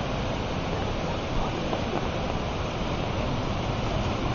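Mountain waterfall pouring, a steady, even rush of falling water.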